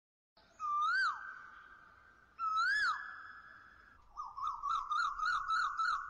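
Bird-call sound effect for a cartoon intro: two whistled calls that rise and fall, each trailing off in a held tone, then a quick run of chirps at about four a second.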